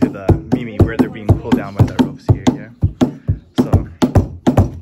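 Wooden mallet pounding the new hide head of a nagado taiko, muffled by a wet towel laid on top, about four hard strikes a second, each with a short low drum ring. The hard strokes break up the hide's static friction so the rope tension can pull it down during stretching.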